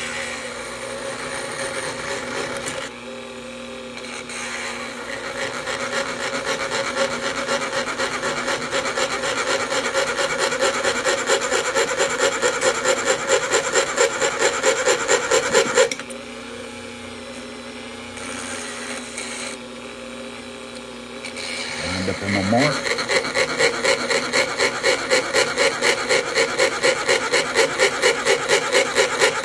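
A rotary tool is running with a length of thin 304 stainless steel tubing spinning in its collet while the tubing is being cut by hand. Over the steady motor hum comes a rhythmic rasping scrape of metal on metal, about three pulses a second. The scraping eases off briefly near the start and for several seconds around the middle, then returns.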